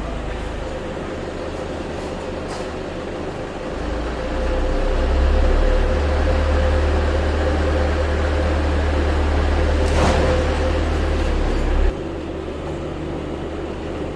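Isuzu Elf crane truck's engine running steadily with a steady whine. The engine note rises and grows louder about four seconds in, then drops back abruptly near the end, with a sharp click partway through.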